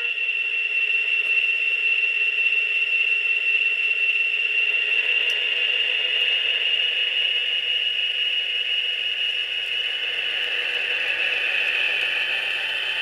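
HO-scale model diesel locomotive's QSI Quantum sound decoder playing EMD GP40-2 diesel engine sound through the model's small speaker as the locomotive pulls away, with a steady high tone over a tinny rattle. A horn sound cuts off right at the start.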